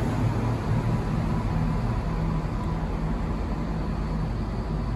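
Diesel multiple unit pulling out of the platform, its underfloor diesel engines giving a steady low drone that eases down slightly as the train draws away.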